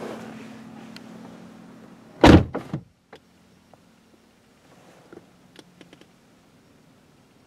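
The 2010 Ford Mustang GT's door being shut about two seconds in: a heavy thud with a quick second knock as it latches, after which the outside sound drops away. A few faint clicks follow.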